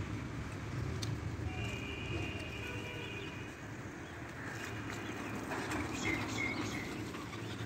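Outdoor street ambience: a steady low engine hum, with a faint high whistle-like tone about two seconds in and a few short high chirps later.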